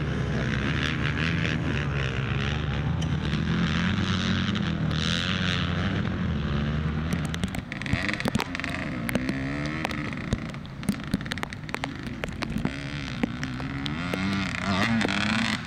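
Dirt bike engines revving up and down in pitch, loud and close for the first half. About halfway through the sound drops to a quieter, more distant engine with scattered sharp clicks and knocks.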